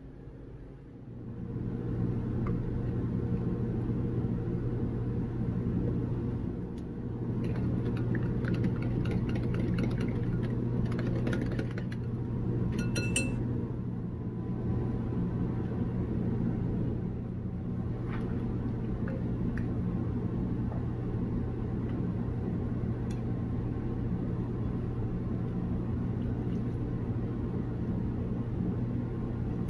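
Small kitchen appliance motor running steadily with a low hum, starting about a second and a half in, with a patch of light rattling clicks in the middle.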